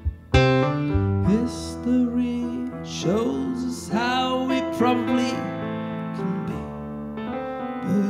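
Indie band playing live: grand piano chords under a man singing a wordless vocal line into a handheld microphone, his notes scooping up into held pitches several times.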